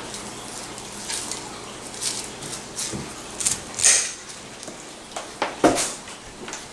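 Kitchen prep handling noises: scattered clicks and knocks as broccoli and a kitchen knife are handled on a countertop. There is a sharp click about four seconds in and a heavier knock near the end.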